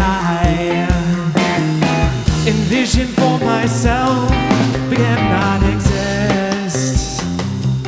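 A rock band playing live, with guitars, bass and drum kit keeping a steady beat. There may be some singing.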